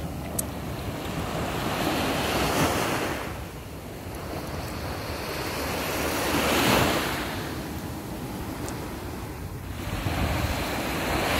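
Small surf breaking and washing up a sandy beach, swelling about every four seconds, with wind buffeting the microphone.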